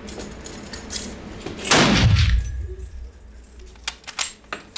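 A single shot from a Mauser K98k bolt-action rifle (7.92×57mm) about two seconds in, with a long echo that rolls away through the indoor range. Near the end comes a quick run of sharp metallic clicks as the bolt is worked to eject the case and chamber the next round.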